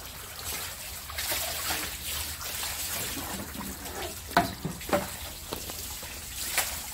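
Water running from a garden hose into a basin, splashing and trickling as salted napa cabbages are rinsed and turned over by hand. A few sharper splashes stand out in the second half.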